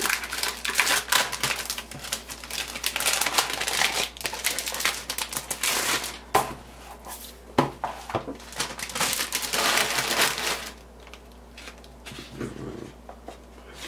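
Clear plastic cellophane sleeve crinkling and crackling as it is peeled and pulled off a paper planner insert, in long uneven runs. About eleven seconds in it quiets to soft rustling of paper being handled.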